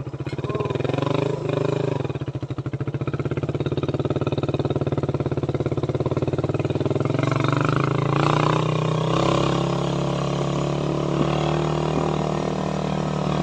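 Suzuki Raider 150 motorcycle's single-cylinder four-stroke engine running under way, with a steady note that climbs a little in pitch about seven seconds in.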